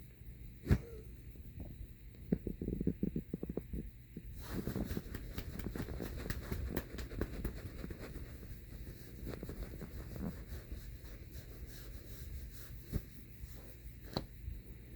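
A hand patting a cat's fluffy rump: a run of soft, quick pats, with one sharper thump about a second in and faster, denser patting from about four seconds in.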